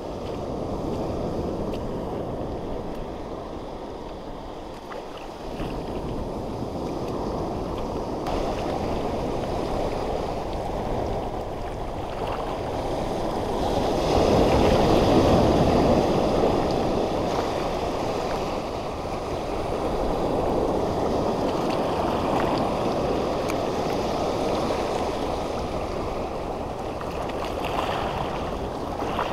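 Sea surf washing over a shallow coral reef: a steady rush of water that swells into a louder wave surge about halfway through.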